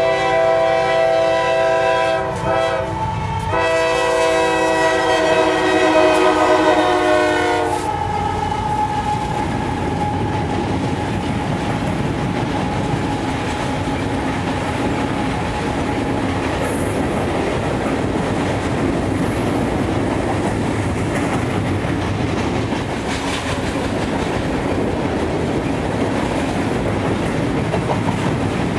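CSX freight locomotive's air horn sounding a loud chord, broken briefly two to three seconds in and stopping about eight seconds in. Then a unit coal train's hopper cars roll past steadily with clickety-clack wheel noise.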